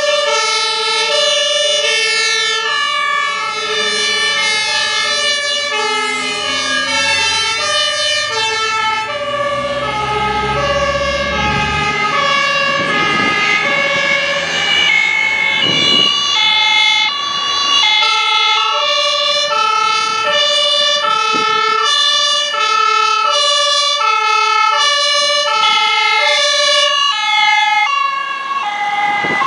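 Two or more German two-tone emergency sirens (Martinshorn) sounding at once at different pitches, each stepping back and forth between two notes, as fire engines drive past. A truck engine's rumble swells as a vehicle passes about ten to twelve seconds in.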